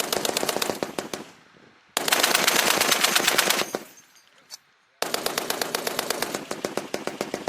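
M2A1 .50-calibre heavy machine gun firing three bursts of automatic fire, each a quick even string of shots. The middle burst is loudest and the last runs longer.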